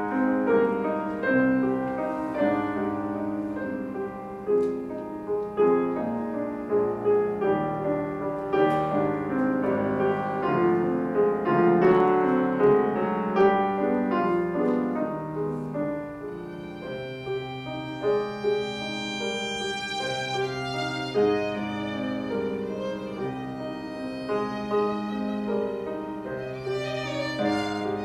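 Violin and grand piano duo playing classical music live. The piano plays alone at first, and about halfway in the violin comes in with long, high held notes over it.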